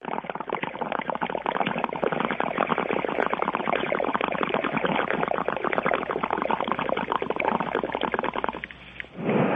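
Bong-hit sound effect: water bubbling and gurgling through a bong as smoke is drawn, a dense crackly bubbling, then a short louder rush near the end.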